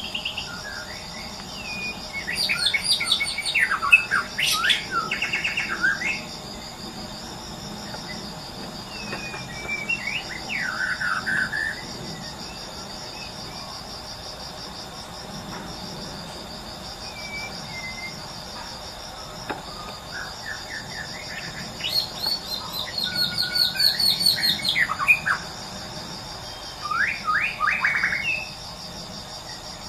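White-rumped shama (murai batu) singing in bursts of varied whistled and rattling phrases separated by short pauses, the loudest run near the end. Insects keep up a steady pulsing buzz underneath.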